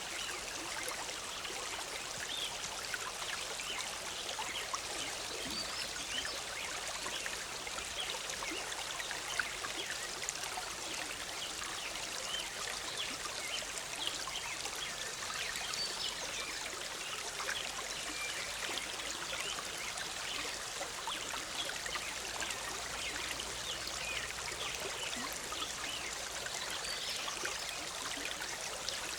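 Forest stream bubbling and trickling steadily, a continuous wash of small splashes.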